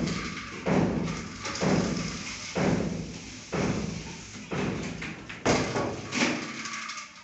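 Stone being tapped down into place as it is laid: a dull thud about once a second, eight times.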